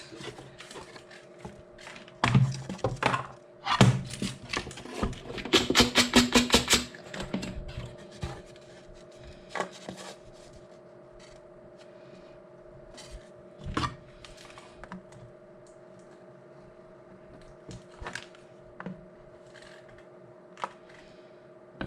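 Scattered knocks, clicks and scrapes of wooden box parts being handled and pressed together while hot-gluing, with a quick run of rapid clicks about six seconds in. A faint steady hum sits underneath.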